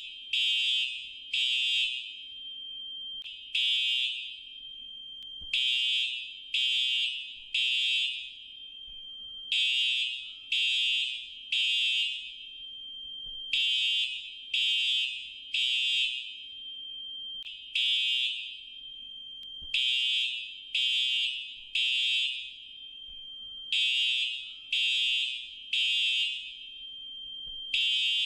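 Fire alarm sounding a high-pitched beep in groups of three, about half a second each, with a short pause after each group, repeating about every four seconds. This is the temporal-three evacuation pattern. A fainter steady tone carries on between the groups.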